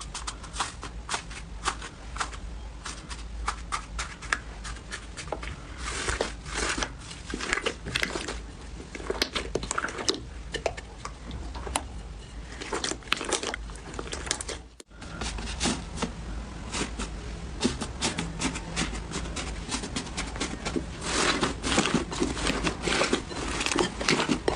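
Slime being squeezed, poked and stretched by hand, giving a dense, irregular run of small crackles, clicks and pops, over a steady low hum. It breaks off briefly a little past halfway and then carries on.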